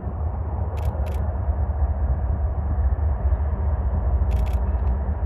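Canadian Pacific GE ES44AC diesel locomotives running with a low, steady rumble that swells as they come into view and then holds.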